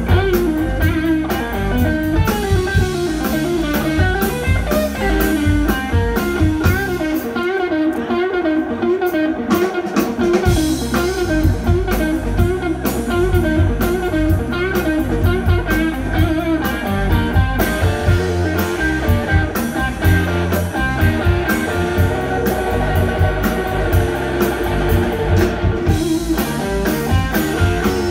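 Live blues band playing: an electric guitar lead with bent, wavering notes over drum kit and a second guitar. About a quarter of the way in the drums and low end drop away for a couple of seconds, leaving the guitar, then the full band comes back in.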